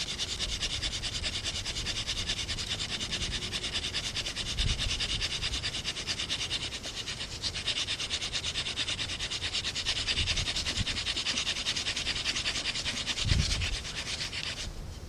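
Wooden hand-drill spindle spun rapidly back and forth against a fireboard, giving a fast, steady, rhythmic rasping friction. The board is already smoking as a coal forms. The rubbing stops abruptly shortly before the end.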